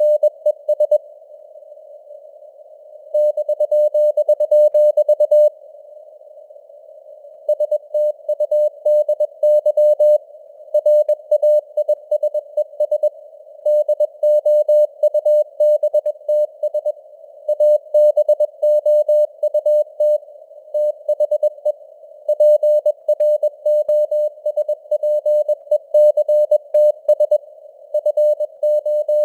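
Morse code (CW) sent at 21 words per minute: a single steady beep tone keyed on and off in dots and dashes, with gaps between letters and words. It sits over a narrow band of simulated radio receiver hiss.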